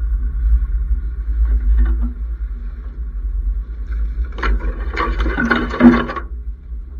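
Nissan X-Trail T30 driving along a rough track with a steady low rumble. For about two seconds near the end, gorse branches scrape and rattle along the side of the vehicle.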